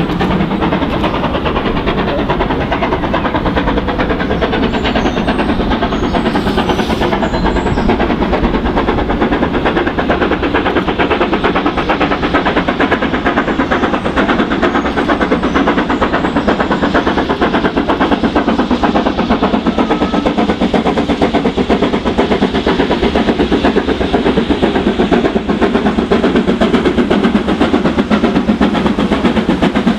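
Two-cylinder BR Britannia Class 4-6-2 steam locomotive No. 70000 working hard up a 1 in 60 gradient with a heavy train: a loud, rapid, unbroken exhaust beat from the chimney, the sound of a locomotive struggling with its load.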